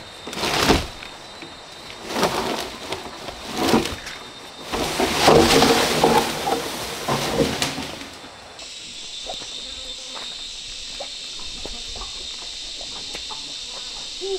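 A wooden plank pulled through undergrowth and leaf litter, giving several bursts of rustling and scraping over the first eight seconds. A steady high insect drone follows, with scattered light knocks.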